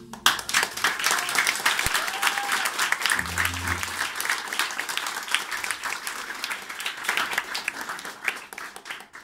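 An audience applauding after a song, a dense patter of many hands clapping that dies away near the end. A brief low hum sounds about three seconds in.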